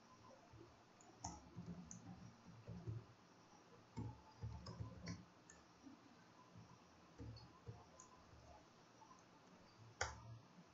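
Faint computer keyboard typing: irregular clusters of key clicks, the loudest stroke about ten seconds in.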